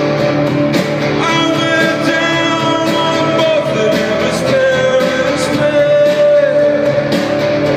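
Solo male singer performing a slow song live while playing a nylon-string classical guitar, holding long sung notes over plucked chords.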